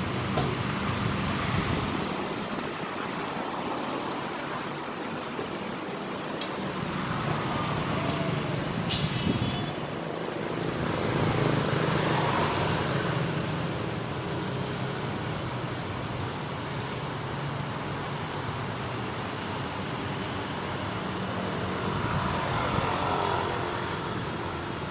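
City street traffic: motorcycle and car engines running and passing over steady road noise, swelling as vehicles go by. About nine seconds in comes a short high-pitched squeal.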